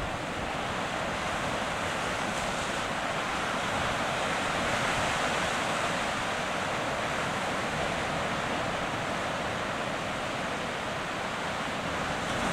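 Steady wash of sea surf breaking around rocks, heard from above, with wind buffeting the microphone.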